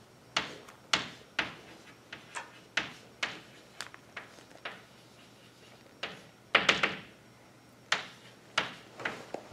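Chalk tapping and scraping on a blackboard as dots and a line are drawn: a series of sharp taps, one or two a second, with a tight cluster of louder strokes about six and a half seconds in.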